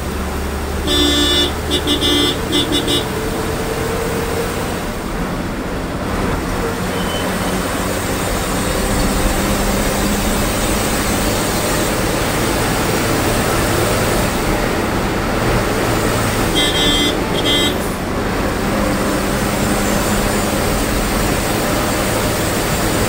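Diesel engine and road noise inside a moving KSRTC bus, with traffic around. A horn gives a quick series of short toots about a second in, and another burst of toots around the middle.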